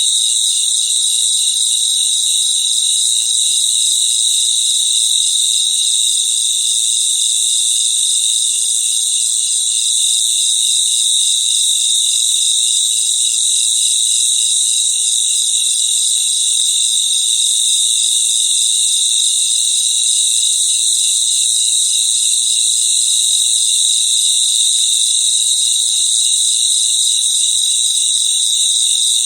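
Crickets chirping in a continuous chorus: a steady high-pitched trill with fast pulsing chirps woven through it, even in loudness throughout.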